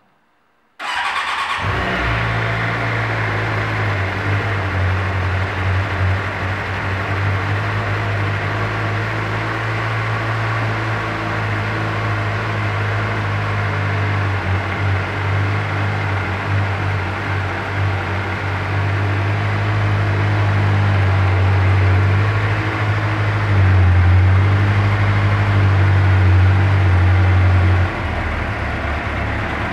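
Suzuki GSX-R600 K9 inline-four engine on its stock exhaust, starting about a second in and then running steadily. It gets slightly louder for a few seconds near the end, then settles back.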